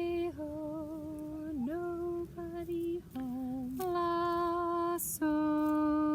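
A woman's voice singing a slow melody alone, in long held notes that step up and down with small slides between them, with a brief hissing consonant about five seconds in.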